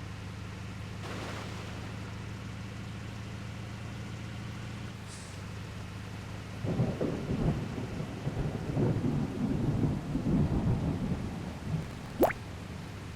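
Water truck's engine running with a steady low drone. About halfway through, some five seconds of loud, irregular rumbling and crackling rise over it. Near the end comes a brief sharp squeak that rises quickly in pitch.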